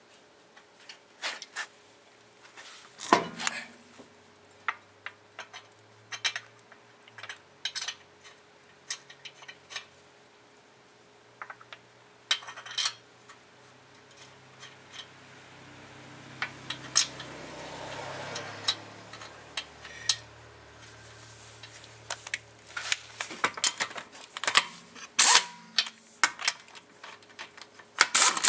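Lug nuts being threaded onto the wheel studs of a rear alloy wheel and spun on with a ratchet and socket: scattered metal clicks and clinks, with quick runs of ratchet clicking near the end. A low hum swells and fades around the middle.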